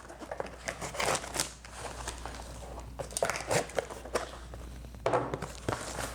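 Plastic packaging crinkling and rustling as it is cut open with a knife and pulled apart: irregular crackles and small clicks, with a louder flurry near the end.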